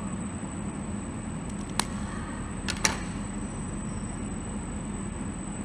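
Two short, sharp clicks about a second apart over a steady low background hum and a faint high whine.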